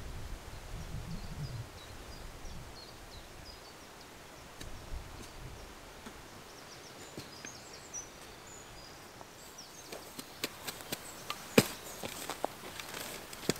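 Open-field ambience with small birds chirping in the background. In the last few seconds comes a run of sharp clicks and knocks, one much louder than the rest.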